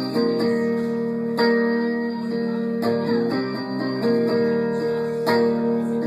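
Acoustic guitar strumming chords, an instrumental passage with no singing.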